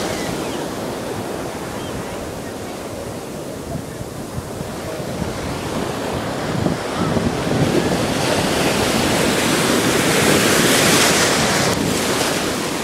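Ocean surf breaking and rushing through the shallows, with wind buffeting the microphone. The rush swells louder in the second half as a wave washes in, then drops off just before the end.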